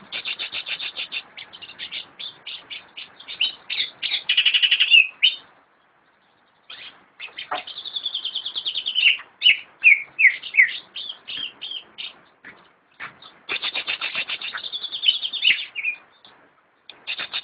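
Green leafbird (cucak ijo) singing: three bouts of fast chattering trills mixed with slurred whistled notes, with short pauses between them.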